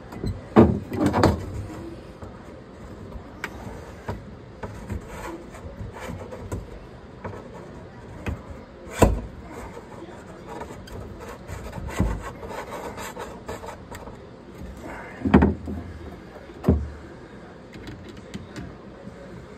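Scattered knocks and clunks, as of hard objects being handled and set down, with quiet rustling and scraping between them.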